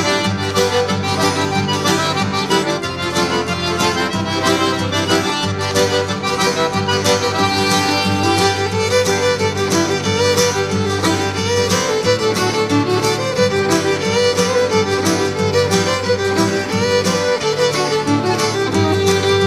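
Background music: a lively tune on fiddle and accordion over a steady beat and moving bass line.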